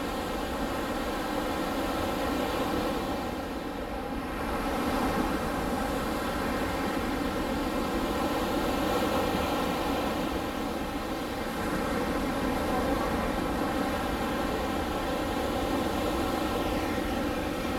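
Steady hum of a large engine running at constant speed, its pitch sagging slightly near the end.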